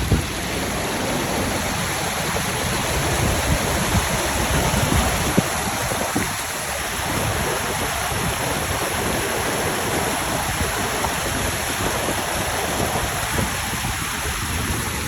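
Small waterfall rushing, a steady dense noise of falling and flowing water.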